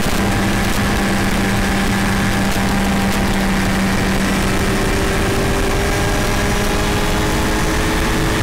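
A vehicle engine running steadily at cruising speed, mixed with road and wind noise from driving. About halfway through, its steady hum changes to a higher pitch.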